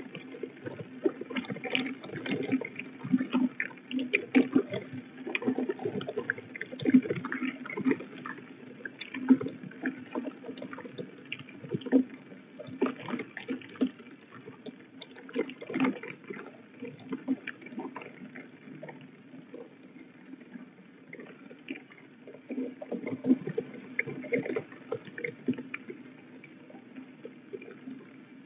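Water spattering and dripping irregularly on a rain-soaked nest ledge, with splashes from a young peregrine falcon bathing in the flooded nest tray. It is busiest in the first half and thins out for a few seconds past the middle.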